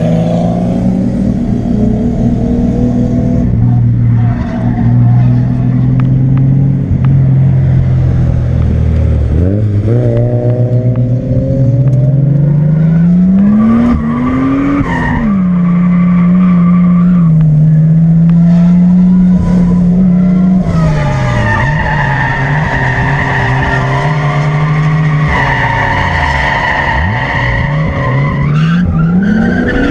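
Toyota Supra MK3's 7M-GTE turbocharged straight-six engine revving up and down in drifts, with tyres squealing loudly through the second half.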